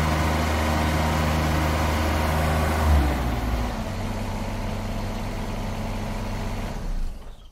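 Truck engine running steadily, with a jolt about three seconds in after which it settles to a lower note, then cutting off at the very end.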